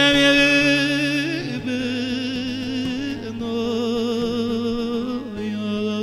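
Male Turkish folk singer drawing out long held notes with a wide vibrato over bağlama (long-necked saz) accompaniment, with the pitch shifting a few times.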